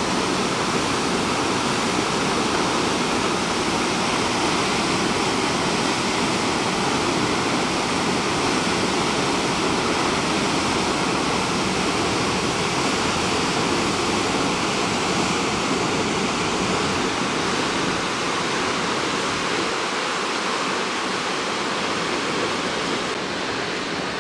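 Steady rushing of Berlin Falls, a tall waterfall plunging over a cliff into its pool below, growing slightly quieter near the end.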